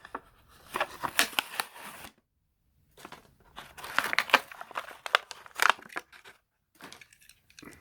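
A Hot Wheels blister pack being opened by hand: the cardboard card tearing and the plastic blister crinkling and crackling, in irregular spells with short pauses.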